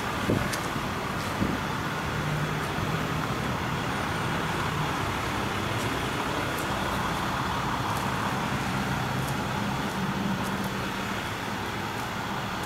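Outdoor street traffic noise with a motor vehicle engine running steadily, and two light knocks near the start.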